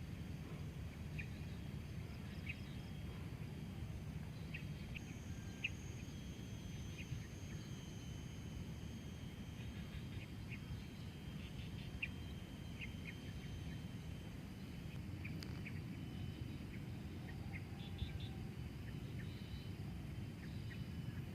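Outdoor nature ambience: short, high chirping calls from small wild animals come scattered every second or so over a steady low rumble. A faint, thin, high steady tone runs beneath them.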